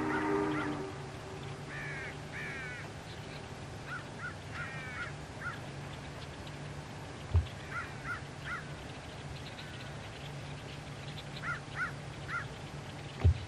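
Union Pacific 3985's steam whistle ending about a second in. Then a bird calls over and over in short arched notes, over a low steady hum, with two dull thumps, one midway and one near the end.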